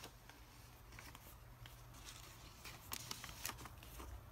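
Faint scratchy rustling with a few light ticks as a small baby brush is drawn through a reborn doll's hair, over a low steady hum.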